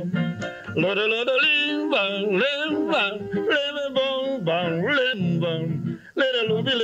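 A man singing a calypso tune, accompanying himself on acoustic guitar, with a brief break just before the end.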